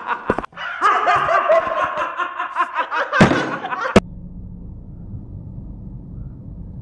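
Men laughing hard and loudly, cut off abruptly about four seconds in. A steady low hum follows: a car idling, heard from inside the cabin.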